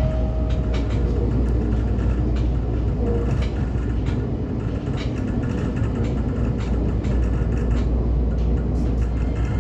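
125 series electric railcar running along the track: a steady low rumble with scattered clicks, and a tone that fades out about a second in.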